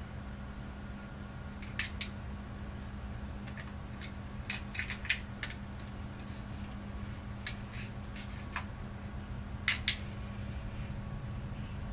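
Short light clicks and clacks from a flat iron clamping and twisting through hair, coming in small clusters every second or two, over a steady low hum.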